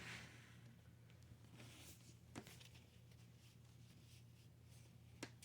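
Near silence: room tone, with two faint short clicks, one about halfway through and one near the end.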